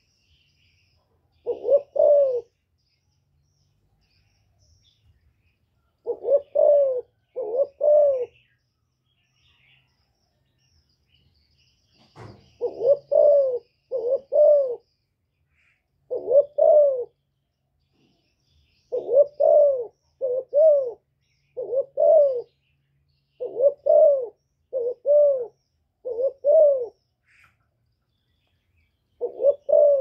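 A hen spotted dove cooing: low arched coo notes, each rising then falling, given singly or in runs of two or three with pauses of a few seconds between.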